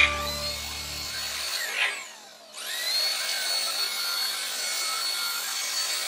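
Dreame V9 cordless stick vacuum running on a floor mat with a steady high-pitched motor whine. About two seconds in its sound drops away briefly, then the motor spins back up with a rising whine.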